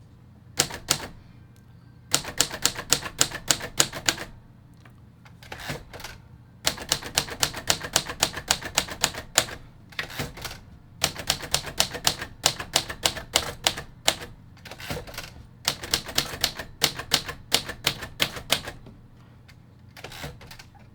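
1950 Royal Quiet De Luxe portable manual typewriter being typed on: quick runs of key strikes, about seven a second, broken by short pauses and a few single strokes.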